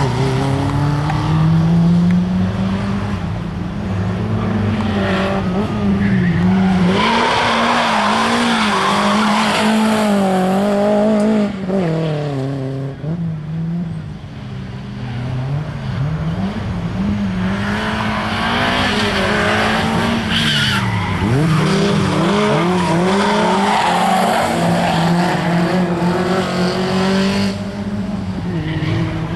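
Audi A3 Quattro driven hard through tight bends: the engine's revs climb and fall over and over as the throttle is worked, with tyres squealing through the corners.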